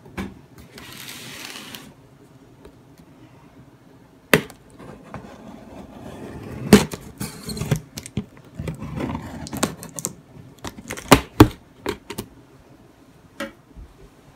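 A cardboard box and its packing being opened and handled: rustling and scraping broken by several sharp knocks and clicks, the two loudest close together late on.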